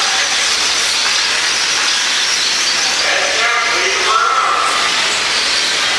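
Steady, hissing din of several electric RC stock trucks racing on an indoor dirt track. A voice is briefly heard over it about three to four and a half seconds in.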